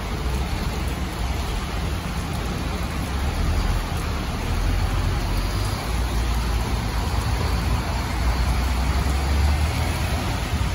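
Scania K230UB city bus's rear-mounted diesel engine pulling away from a stop and driving off with a steady low drone, over the hiss of rain and traffic on a wet road.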